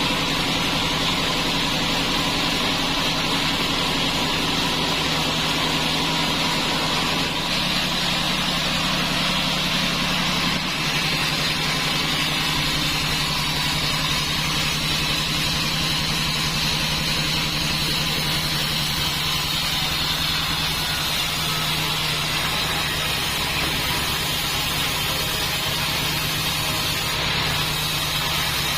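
Band sawmill running steadily: a continuous machine drone with a high whine above it, shifting slightly a few times.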